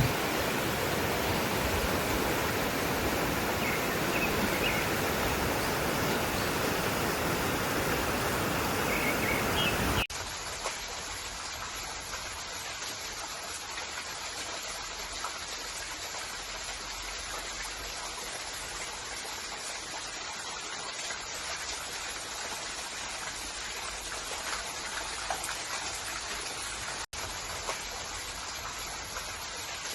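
Steady rushing of flowing water. About ten seconds in it cuts abruptly to a quieter, thinner rush.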